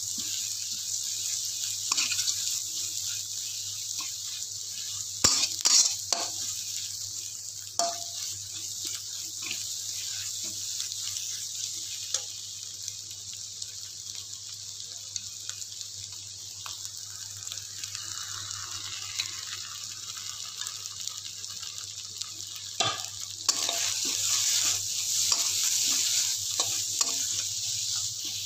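Egg and pounded aromatics sizzling in hot oil in a wok while being stirred and scraped with a metal spatula, with frequent sharp clicks and scrapes of the spatula against the wok. The sizzle is quieter through the middle and grows louder again near the end.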